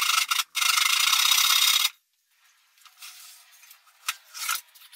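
Sandpaper rubbing on wood in two strokes, a short one and then one about a second and a half long, stopping abruptly about two seconds in. A few faint scrapes and two light knocks follow near the end.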